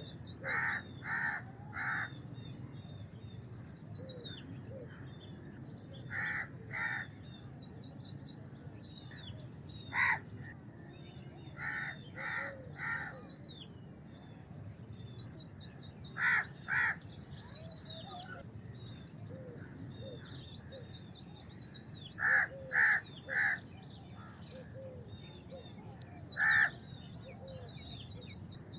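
House crow cawing in short runs of two or three harsh caws, with a single caw now and then, the runs coming every few seconds. Behind it, small birds chirp and twitter without a break.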